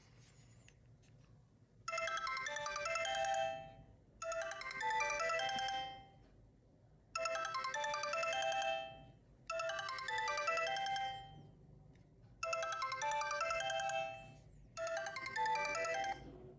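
A Sony Ericsson K800 mobile phone playing a melodic ringtone through its loudspeaker. It plays six short phrases of about two seconds each, in three pairs, starting about two seconds in.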